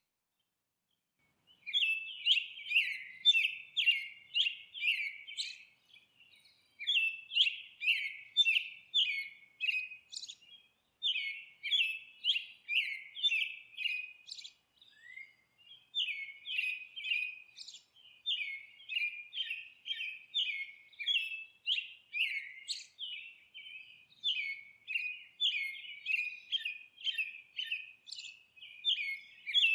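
A bird chirping: short, sharp chirps repeated about twice a second in long runs, starting a second or two in, with brief pauses between runs.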